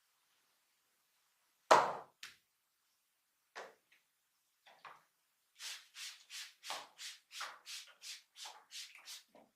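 A barber's hands striking the body in a percussive massage. One sharp slap, a few scattered strikes, then a quick even run of about a dozen slaps, roughly three a second.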